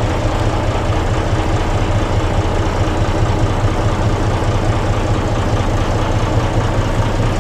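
Old front-engined Hino diesel bus engine running steadily at low revs, heard from inside the bus, fitted with a 'ngorok' growling exhaust.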